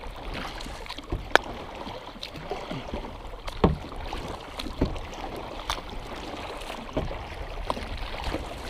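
Kayak paddle strokes on calm water: the blades dip and splash beside a plastic sit-on-top kayak, with a few short, sharp clicks among the water noise.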